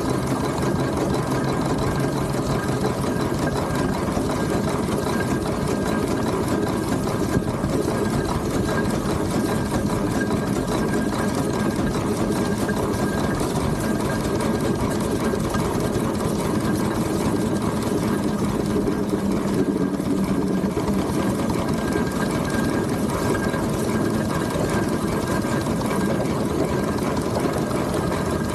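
Steam traction engine standing with its fire opened up to raise steam pressure: a steady, fast, even mechanical clatter over a hiss.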